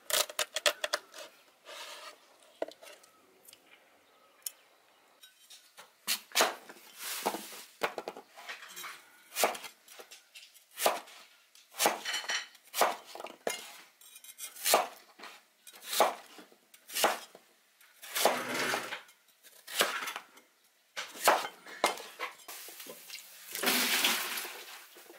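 Knife and cleaver chopping on a wooden cutting board: a quick run of chops at first, then single heavy chops about once a second. Near the end, a longer, noisier stretch as the chopped chunks go into a pot of rice and water.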